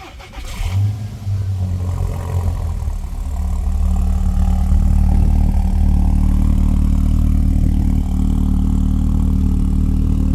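Car engine cold-starting through a straight-piped exhaust with no resonator. It cranks briefly, catches with a rev flare about a second in, then settles into a steady idle that grows a little louder by about four seconds in.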